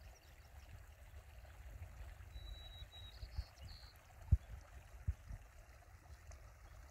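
Faint running water of a small meadow stream under a low rumble, with a short high chirp about two and a half seconds in and two soft thumps in the second half.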